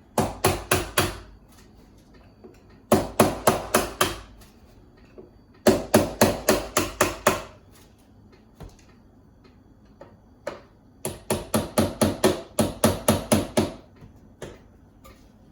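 Hammer tapping in quick runs of about five blows a second, four runs with one lone blow between, to break the old paint seal holding a painted-in window part.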